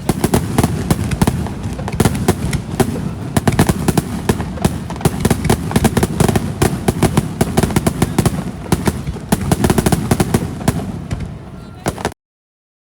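Fireworks going off in a dense, continuous run of rapid crackling pops over a low rumble of bursts; the sound cuts off abruptly near the end.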